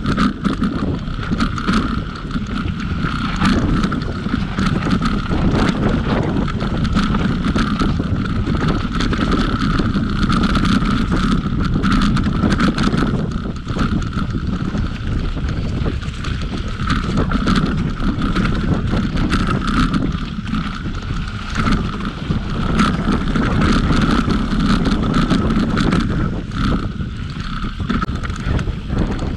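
Mountain bike riding down a dirt forest trail, recorded from a camera on a following rider's bike: wind rushing over the microphone and tyres rumbling on the dirt, with frequent clatters and knocks as the bike takes bumps and a steady high buzz.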